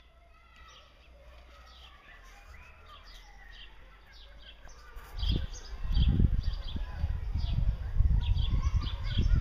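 Small birds chirping in the background, short high chirps repeated over and over. From about five seconds in, a loud, uneven low rumble on the microphone takes over as the loudest sound.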